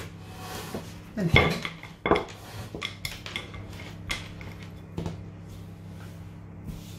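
Wooden rolling pin rolling over strips of dough on a wooden worktop, with a sharp knock of wood on wood about once a second.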